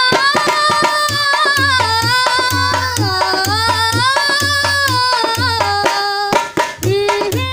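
Indian folk-style music: a dholak beats a steady rhythm of deep thumps and sharp strokes under a long, gliding melody line held on sustained notes.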